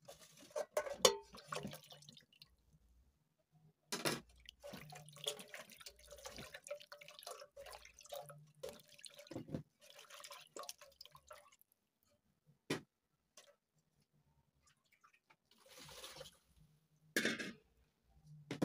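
Hands washing vegetables and a knife in a steel bowl of water: splashing and dripping in bouts, with sharp knocks against the metal bowl. A pause about two-thirds through, then a few more splashes and knocks near the end.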